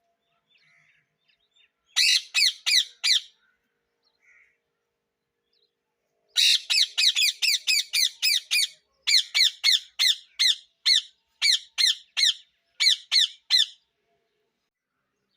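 A parrot squawking in a run of harsh repeated calls, each sliding down in pitch, about three a second. There are four about two seconds in, then a long series from about six seconds in until near the end.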